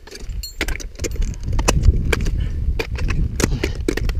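Wind buffeting the camera microphone, a heavy low rumble that builds about a second in, with scattered sharp clinks and knocks of climbing gear: carabiners and the fixed summit chain.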